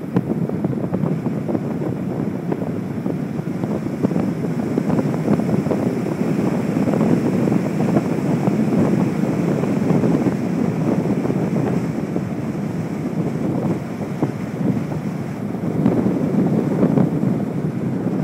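Wind buffeting the microphone of a camera on a moving car, a steady rushing noise that swells and eases a little.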